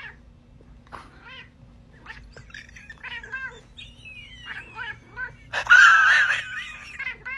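A domestic cat vocalizing in a string of short, varied meows and chirping calls that rise and fall in pitch, with one louder, harsher yowl about six seconds in.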